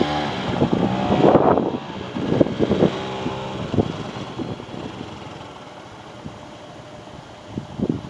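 A motor vehicle's engine passing by, its pitch shifting, then fading away over the next few seconds to a low background hum.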